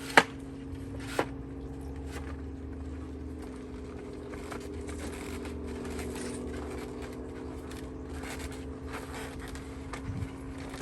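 Hard plastic knocks and scraping as a stuck, broken core piece is worked loose inside a Pentair Clean & Clear cartridge filter. There are two sharp knocks about a second apart near the start, then scattered light scrapes over a steady low hum.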